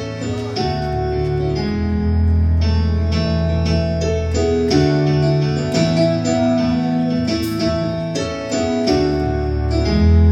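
Worship music played on keyboard, sustained chords over deep bass notes, changing every second or so with no singing.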